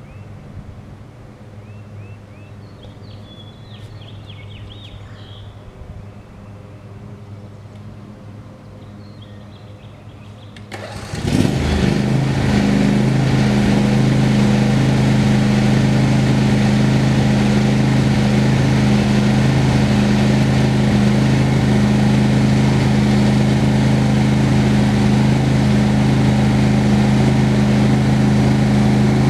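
Homemade sawmill's engine idling with a low hum, then throttling up suddenly about a third of the way in and running loud and steady at speed.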